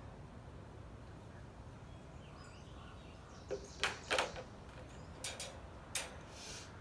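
Wire dog crate rattling and clinking as a small puppy steps into it: a few sharp metallic clatters in two clusters, starting about three and a half seconds in.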